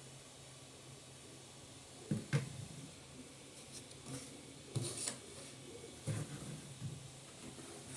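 Several light clicks and knocks of objects being handled, the loudest pair about two seconds in and more near the middle and end, over a faint steady low hum.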